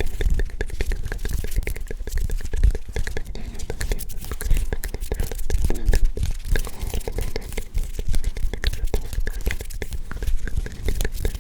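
Close-up unintelligible ASMR whispering, a steady stream of breathy, crackly mouth sounds with many small clicks throughout.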